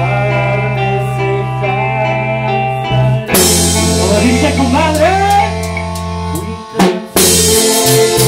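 Live tropical band playing: keyboard chords, bass and a drum kit, with a sliding lead melody in the middle. Near the end the band breaks briefly on a drum hit, then comes back in.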